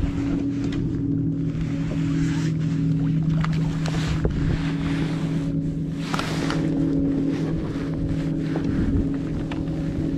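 Steady electric hum of a MotorGuide Xi3 kayak trolling motor running, with gusts of wind rushing on the microphone and a few light handling clicks.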